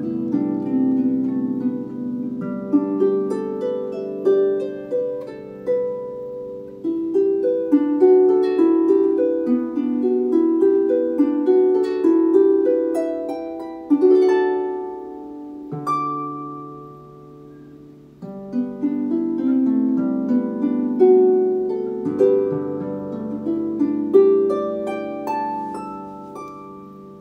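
Solo harp music on a Dusty Strings FH36S lever harp: plucked melody notes ringing over lower bass notes, fading away near the end.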